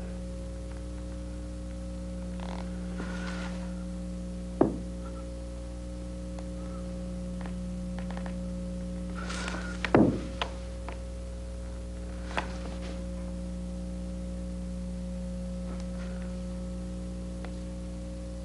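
Steady low hum under a few dull thumps and soft rustles of a performer moving with a wooden chair on a wooden stage floor. The loudest thumps come about a quarter of the way in and just past the middle.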